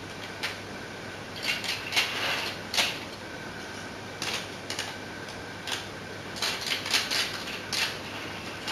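Irregular clicks and clatter of model railway track and rolling stock being handled and fitted together on a layout, in small clusters of sharp clicks with pauses between.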